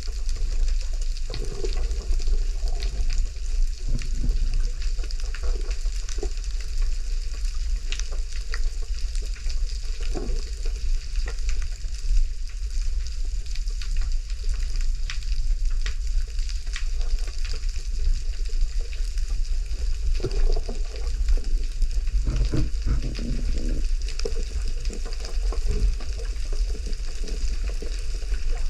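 Steady dense crackle, like snapping shrimp on a reef heard underwater, over a constant low rumble of moving water, with a few soft knocks.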